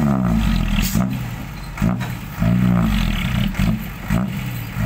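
Isuzu Deca dump truck's diesel engine revving up and dropping back in several bursts while the raised tipper bed dumps a heavy load of wet clay.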